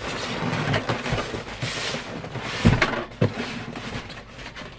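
Rustling and knocking from handling a sewing machine and its packaging while it is turned around, with two dull thumps about half a second apart a little past halfway.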